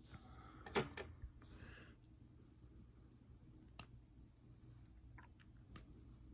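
Light clicks and taps of small metal lock parts being handled while a lock is taken apart: a short scraping rustle with a few clicks in the first two seconds, a sharp single click past halfway, and another click near the end.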